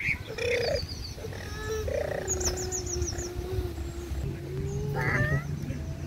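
Small birds chirping in quick little series over a long, steady droning hum that sags slightly in pitch and rises again.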